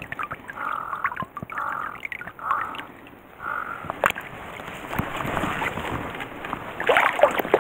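A bird calls four times in short, separate calls during the first few seconds. Then a dip net is swept through shallow stream water and bankside grass, giving splashing, scraping and rustling.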